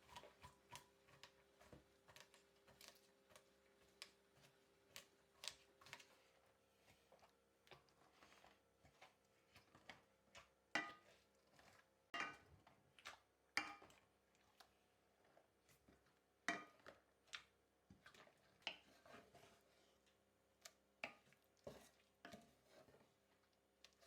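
Quiet, irregular kitchen clinks and taps of utensils against dishes, with a few louder, briefly ringing clinks around the middle. A faint steady hum stops about six seconds in.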